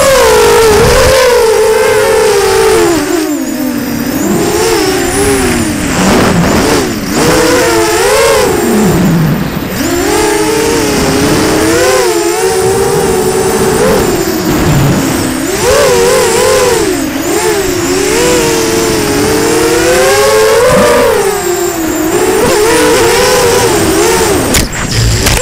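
Drone's electric motors and propellers whining, heard from its onboard camera, the pitch rising and falling constantly as the throttle changes. A few sharp knocks sound near the end.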